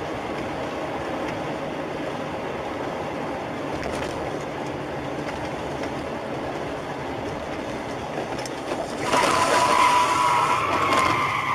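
Steady road and engine noise of a car driving. About nine seconds in, a louder sound with a wavering high tone comes in and lasts about three seconds.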